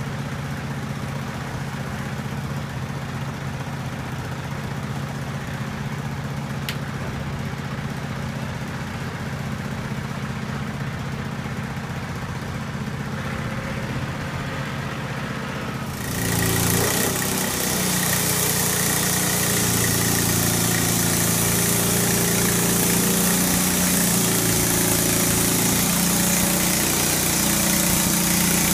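An engine idling steadily; about halfway through, the band sawmill's engine speeds up and its band blade starts running with a loud steady hiss, cutting into a black walnut log by the end.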